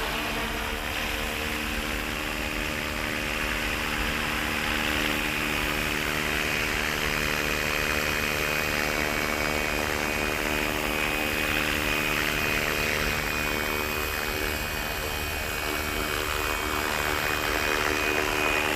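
Electric 450-size RC helicopter (FW450) running steadily in flight: a whine from the brushless motor and gears over the hum of the spinning rotor, a little louder near the end.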